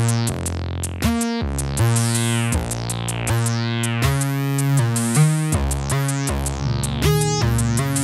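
Neuzeit Warp wavetable/additive oscillator playing a sequenced pattern of polyphonic synth chord stabs over a bass line, new chords every half second or so. Its resonant low-pass filter cutoff is being swept by the Warp knob, so the brightness of the chords opens and closes.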